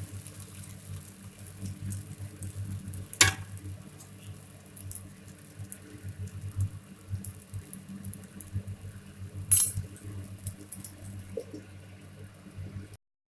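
Metal kitchen utensils clinking and tapping while a dosa is made, with two sharper clinks about three seconds and nine and a half seconds in, over a steady low hum. The sound cuts out abruptly near the end.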